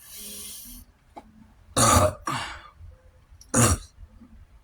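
A man burping twice, loud and brief, about two seconds in and again about a second and a half later, after a short breathy hiss at the start.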